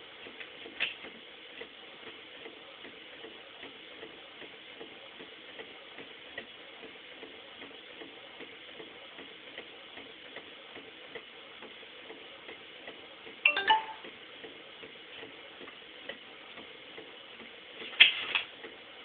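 Inkjet printer printing: its mechanism ticks steadily about two to three times a second over a low hum, with a few louder mechanical clacks, one double, about two-thirds of the way in and just before the end.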